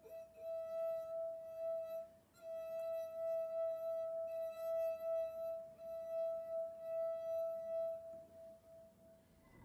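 A water-filled wine glass singing as a wet fingertip circles its rim: one steady ringing tone that pulses gently in loudness, breaks off briefly about two seconds in, and fades out near the end.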